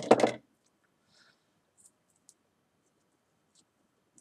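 A brief loud knock right at the start, then faint scattered clicks and scratching as fingers press and work the freshly melted ends of the paracord.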